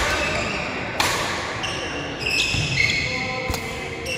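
Badminton rally: two sharp racket strikes on the shuttlecock, one at the start and another about a second in, with several high shoe squeaks on the court floor after the second strike and a dull footfall thud near the end.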